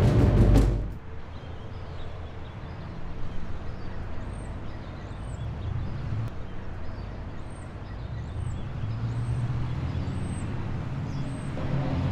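A loud music hit ends about a second in, giving way to outdoor street ambience: a low traffic rumble with a bird chirping short high notes roughly once a second.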